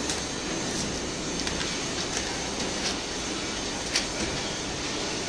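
Plastic stretch wrap crackling and rustling as it is pulled and torn off, a steady rustle with scattered sharp crackles, the sharpest about four seconds in.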